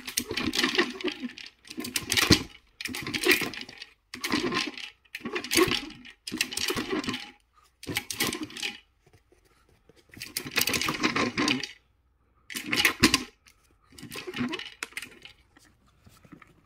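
Dry food pellets rattling inside the plastic roller of a treat-dispensing nosework toy as a Shih Tzu turns it, and clattering out onto the plastic maze tray below. The rattling comes in about ten bursts of roughly a second each, with a longer pause about nine seconds in.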